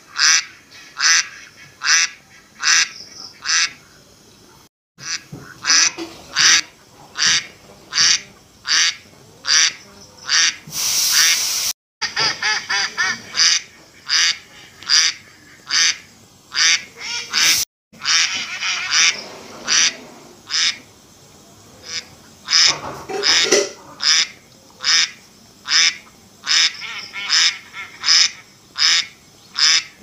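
Domestic ducks quacking over and over in a steady rhythm, about two quacks a second. About eleven seconds in there is a short, louder burst of noise, and the sound cuts out for an instant three times.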